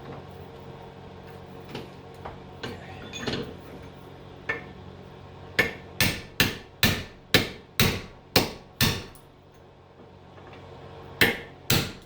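Hammer striking a punch to knock the cut-apart core out of a scrap transformer: a few light taps, then a run of about eight sharp blows at roughly two to three a second, a pause, and two more blows near the end.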